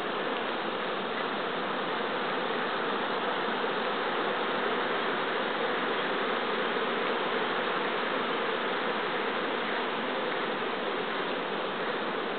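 Steady hum of a great many honeybees flying around the hives of an apiary during a heavy black locust (acacia) nectar flow.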